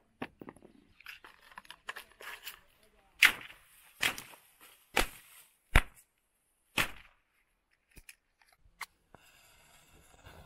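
A small firecracker going off in an irregular string of sharp bangs, about six loud ones with quieter pops between, ending in two small pops. A faint hiss follows near the end.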